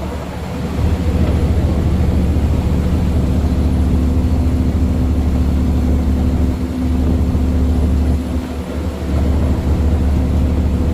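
A large engine running steadily with a low, even drone, easing briefly twice.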